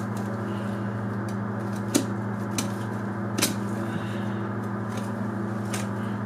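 Steady low machine hum, with a few sharp clicks of a knife working along a deer carcass's backbone, the clearest about two seconds in and again a second and a half later.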